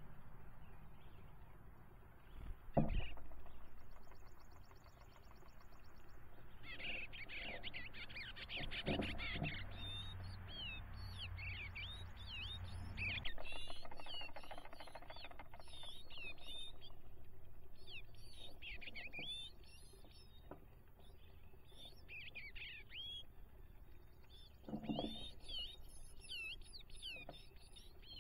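Songbirds chirping and singing in quick runs of short notes, with a few dull thumps in between.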